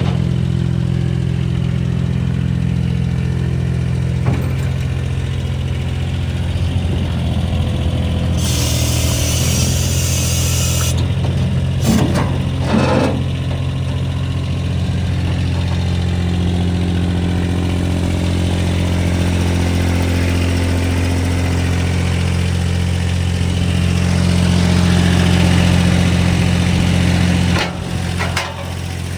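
Diesel engine of a Clark Bobcat 533 skid steer loader running. A few seconds of hiss come about a third of the way in, followed by two short clunks. Near the end the engine gets louder, then drops off suddenly.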